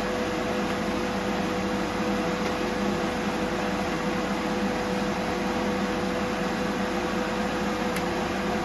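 Steady hum of a fan motor with one constant mid-pitched tone running under it; a faint tick near the end.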